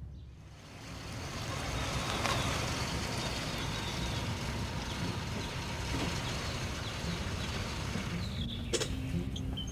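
Ford pickup truck's engine running with a steady wash of vehicle noise, which swells over the first two seconds. A sharp click comes near the end.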